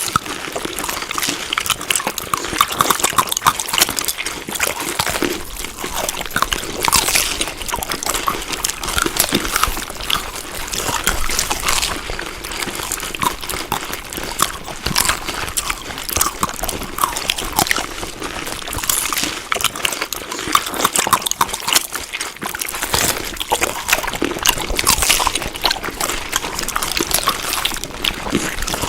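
Close-up wet chewing of moist food, a dense run of small irregular smacking clicks.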